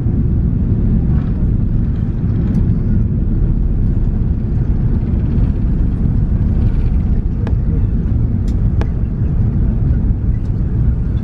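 Inside the cabin of an Airbus A380 on its takeoff run and liftoff: a loud, steady low rumble from the four Rolls-Royce Trent 900 engines at takeoff thrust and the wheels on the runway. A few faint clicks come in the second half.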